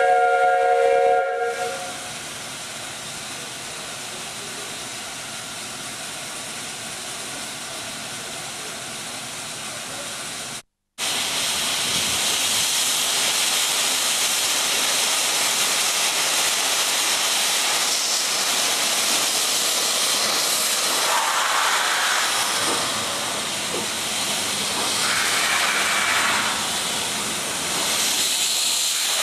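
16A class Garratt steam locomotive standing in steam, with escaping steam making a steady hiss. A steam whistle blast of several steady notes at once ends about a second and a half in. The hiss cuts out for a moment near the middle and comes back louder.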